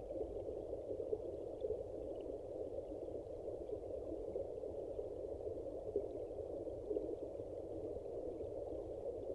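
Stream water rushing and bubbling, heard from underwater in the current: a steady, dull rushing with little high end.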